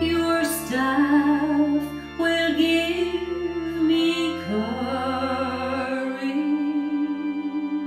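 A solo voice singing a slow hymn line over sustained organ chords.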